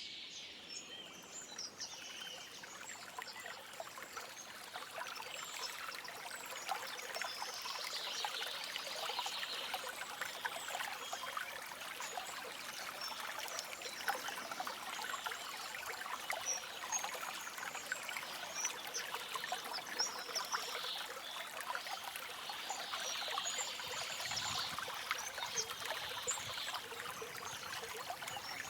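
A shallow stream babbling and trickling steadily over stones, with birds chirping faintly now and then above the water.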